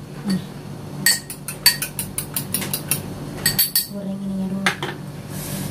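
Metal fork beating eggs in a small ceramic bowl, clinking against the bowl's sides in a quick, even rhythm of about six strokes a second for some two seconds. A few more clinks follow after a short pause.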